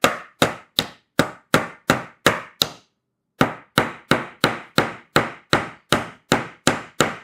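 A hammer tapping small nails into a wooden beehive frame: quick, even strikes about three a second, with a short pause about three seconds in.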